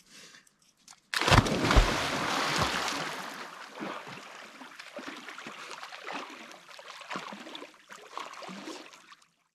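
A person diving into a cold glacial mountain lake: a sudden loud splash about a second in, then churning water and the smaller irregular splashes of swimming strokes.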